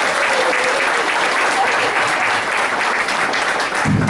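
Audience applauding, a dense steady clatter of many hands clapping, with a low thump just before the end.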